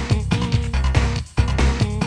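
Background music with a strong bass line and a steady beat, which briefly drops out a little past halfway.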